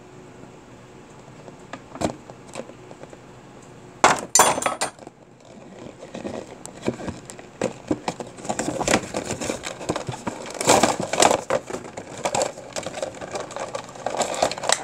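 Cardboard action-figure box and its clear plastic blister tray being handled and opened. A few scattered clicks, then a sudden loud burst of packaging noise about four seconds in, then dense crackling of the plastic tray being worked out of the box, growing busier toward the end.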